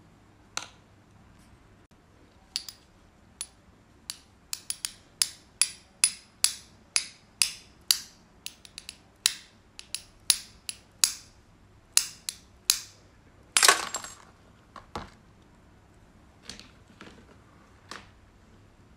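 A run of sharp, hard taps, roughly two a second, followed by a louder, longer clatter and a few fainter taps.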